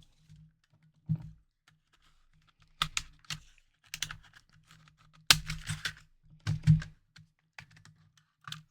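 Irregular clicks and taps of small plastic and metal parts being handled while a game console is worked on, in short clusters with a few louder knocks about five and a half and nearly seven seconds in.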